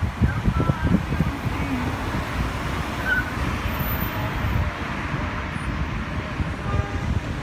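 Road traffic heard from a moving car, with wind buffeting the microphone in a steady, uneven low rumble.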